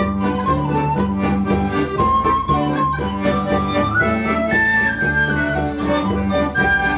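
A folk band playing a polka live, with accordion, acoustic guitar and bodhrán and a bright melody line on top, in a steady bouncing rhythm.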